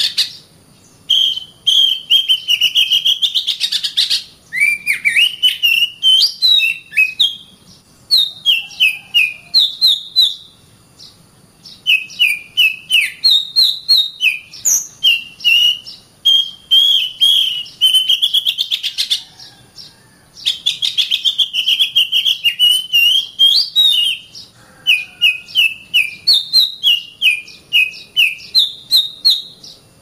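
Oriental magpie-robin (kacer) singing loudly: varied phrases of sweet whistles and rapid trills, coming in runs of a few seconds with short pauses between them.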